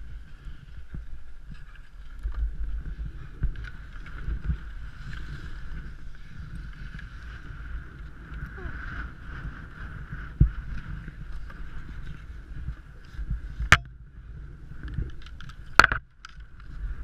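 Wind buffeting a helmet camera's microphone, with the scuffing and handling noise of a skier moving on snow. Two sharp knocks come near the end as the skis are handled.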